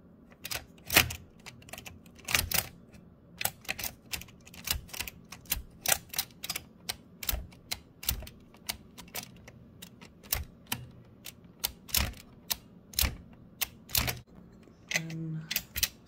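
Toshiba BW-3112 Japanese kanji typewriter mechanism clicking as it is worked, its escapement stepping. There are sharp metallic clicks at an uneven pace of roughly two a second, some coming in quick pairs.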